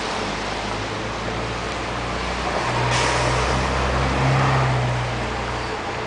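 A car driving past, its engine and tyre noise swelling to a peak about four seconds in and then fading, over a steady background of street noise.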